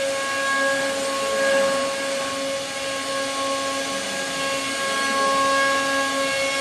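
CNC router spindle running at steady speed, its cutter carving into a wooden panel: a steady whine over the noise of the cut, swelling and easing a little as the cutter's load changes.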